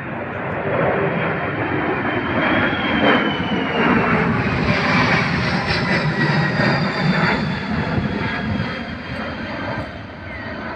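Boeing C-17 Globemaster III's four turbofan jet engines as the transport flies past: the jet noise swells, peaks about midway and fades, with a whine that slides slowly down in pitch as it passes.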